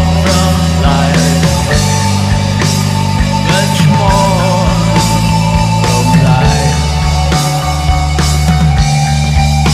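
Post-punk rock band playing a full-band passage, drums keeping a steady beat under bass and held guitar tones.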